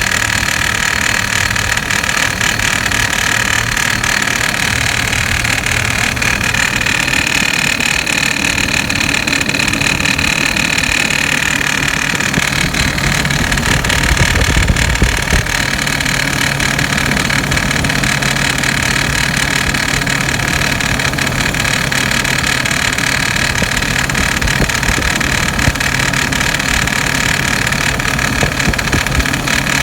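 2006 Hummer H3's inline-five engine idling steadily with a rattling noise that began after the serpentine belt was replaced, cause unknown to the owner. A brief rise in low rumble about halfway through.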